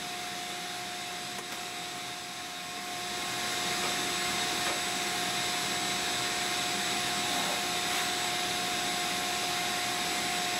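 Vacuum cleaner running steadily, its nozzle held at the open pellet-stove firebox to draw in the ash dust; a steady whine over an even rush of air, growing louder about three seconds in.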